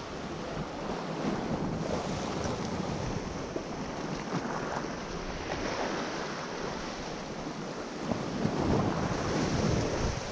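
Sea waves washing and surging, with wind buffeting the microphone; the wash swells louder about eight seconds in.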